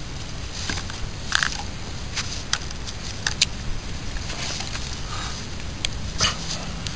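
Irregular clicks, crackles and scrapes as a landed red-tail catfish is handled in a mesh landing net on a concrete bank, over a steady low background noise.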